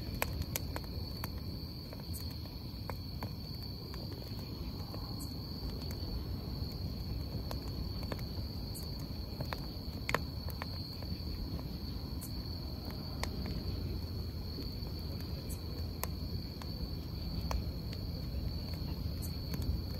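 Wood fire crackling in a small metal fire-pit bowl, with sharp pops scattered every second or so, over a steady high-pitched insect trill and a low steady rumble.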